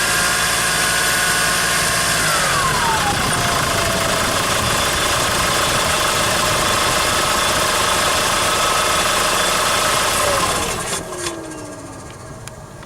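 Hyundai Grand Starex engine running with a clear turbocharger whistle: the whistle holds high under revs for about two seconds, drops with the revs to a lower steady whistle at idle, then winds down in pitch and fades near the end as the engine noise drops away.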